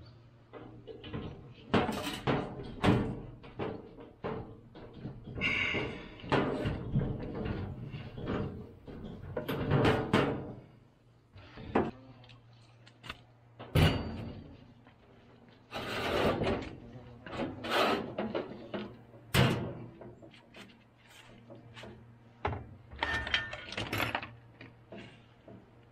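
A string of sharp knocks, clunks and clatters as hard objects are handled, moved and set down, over a dozen separate impacts with short gaps between them, over a faint steady low hum.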